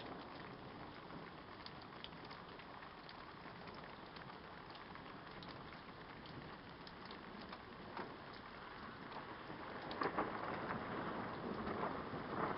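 Steady rain falling, with many scattered drops ticking close by; the rain gets louder and the ticks denser about ten seconds in.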